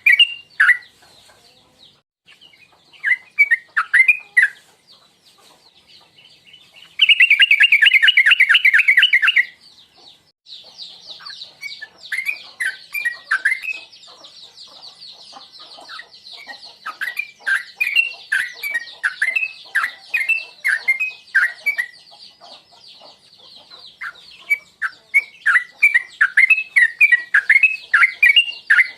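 Yellow-vented bulbul (trucuk) singing bouts of short, bubbly chirping phrases. About seven seconds in comes a loud, rapid run of notes, and from about ten seconds a steady high trill runs beneath the phrases.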